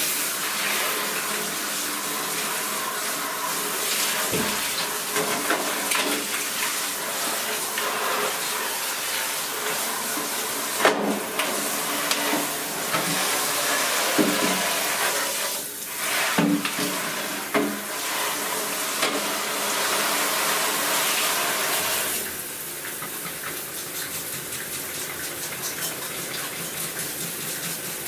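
Water from a hand-held shower head spraying over the plastic base of a disassembled inkjet printer in a bathtub: a steady rushing hiss with a few short knocks. It turns quieter about three-quarters of the way through.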